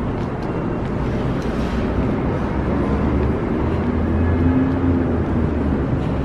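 Steady low rumble of downtown street traffic, with a vehicle engine's hum rising and falling about four seconds in.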